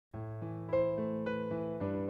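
Background music: a keyboard, piano-like, playing held chords with new notes coming in about every half second, starting just after the beginning.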